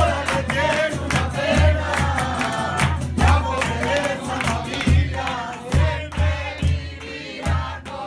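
A group of men singing together to a strummed acoustic guitar, with many hands clapping a steady rhythm.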